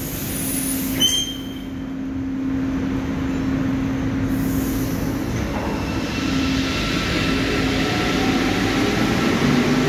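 Santiago Metro train at the platform: a steady electric hum with a short click about a second in. From about six seconds in, the traction motors' whine rises in pitch as the train starts to pull away.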